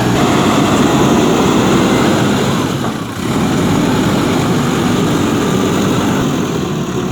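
Backhoe loader's diesel engine running steadily under load, dipping briefly about three seconds in.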